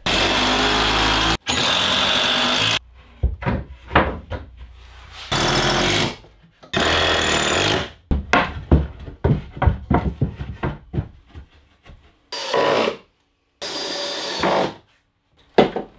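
Cordless drill-driver running in short bursts of about a second, six times, driving screws into the timber of a workbench's lower shelf. Knocks and clatter of wood being handled come between the bursts.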